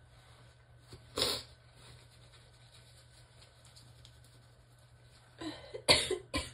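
A woman sneezing uncovered in a relaxed sneezing fit: a short sneeze about a second in, then a noisy breath in and two sharp sneezes in quick succession near the end.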